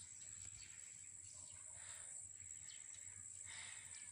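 Near silence: faint outdoor background noise with a few faint, brief chirps.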